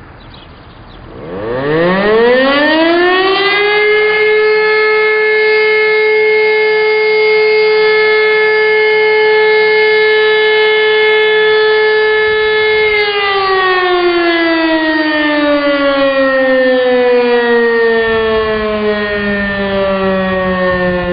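E57 electromechanical civil-defence siren sounding a test alarm. It spins up from a low pitch to a steady howl over about three seconds, holds one tone for about nine seconds, then winds down with a slowly falling pitch.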